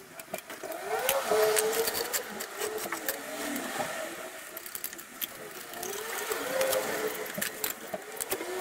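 Hydraulic trolley jack being worked under a truck's front axle: repeated squeaks that rise and fall about once a second, with sharp metallic clicks, as the jack is pumped and let down.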